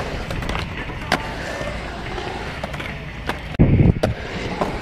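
Skateboard wheels rolling and carving across a concrete bowl, with a few sharp clacks of the board. About three and a half seconds in, a much louder low rumble sets in.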